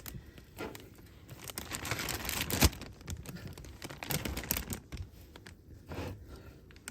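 Plastic bag crinkling and rustling as it is handled, with scattered small knocks and one sharp knock about two and a half seconds in.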